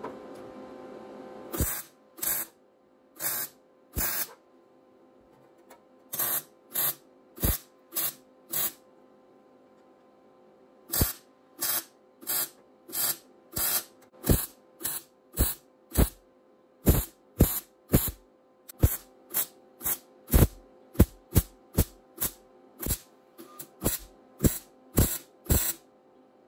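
MIG wire welder stitch-welding a steel patch panel in short trigger blips: about forty brief bursts, one or two a second, with two short pauses. The bursts are kept short to hold the heat down while the patch is welded up solid.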